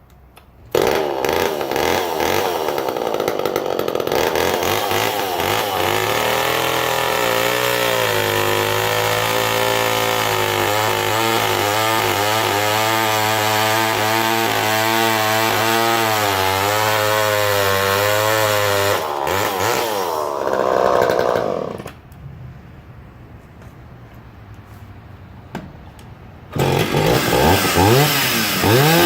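Vintage Homelite two-stroke chainsaw starting abruptly and running at high revs, its pitch wavering under load as it cuts through wood. About 22 seconds in it drops to a much lower level, then a chainsaw revs up loudly again near the end.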